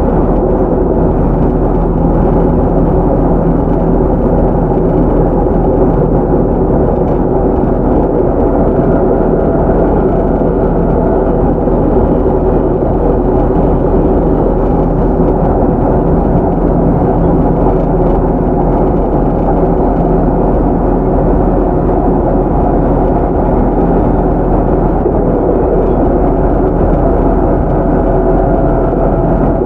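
Cabin running sound of a JR Central 311 series electric train running steadily at speed: the rumble of wheels on rail with a steady hum from its MT61 traction motors and gears.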